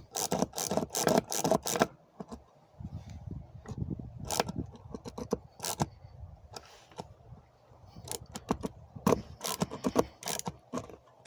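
Yankee spiral ratchet screwdriver being pumped up and down to drive in a cross-head screw: quick runs of metallic clicks and clacks with each stroke, a fast run in the first two seconds, a few scattered strokes, then another run near the end.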